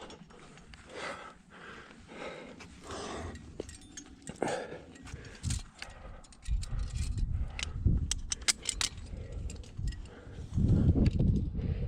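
Climbing gear clinking and body and clothing scraping against rock while squeezing up a tight rock chimney. Soft swishes in the first half give way to heavier rubbing and a cluster of sharp metallic clicks from the middle on.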